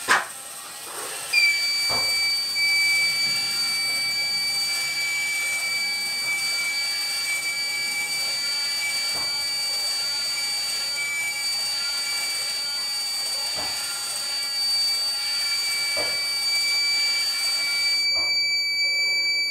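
An Arduino-driven electronic buzzer sounds one steady high-pitched tone, switched on because water has wet the moisture sensor. It starts about a second in and holds without a break. A short knock comes just before it, and a few faint clicks come later.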